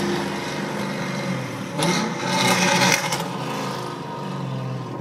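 Pontiac GTO's LS2 V8 with headers and a loud custom exhaust running under throttle. It gets louder as the engine revs up for about a second, starting just under two seconds in.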